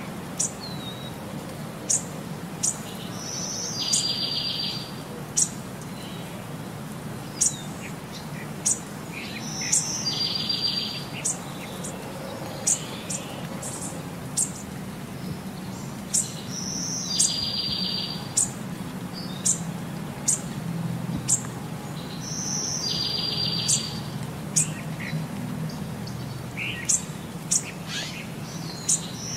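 Birdsong: sharp high chirps throughout and a buzzy trill that comes back about every six and a half seconds, over a low steady hum.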